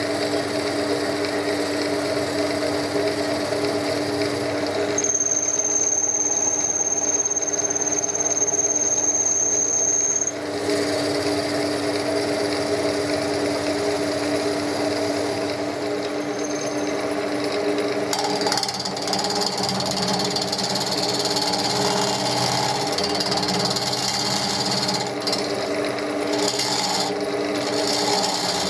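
Wood lathe running with a steady motor hum, turning a chestnut piece. About five seconds in a high, steady squeal sounds for about five seconds and stops, and from about two-thirds of the way through a hissing scrape of the wood being worked joins the hum.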